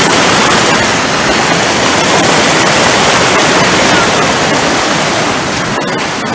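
Muddy floodwater rushing fast over rocks around wading feet, a steady loud rush. A few light clicks near the end.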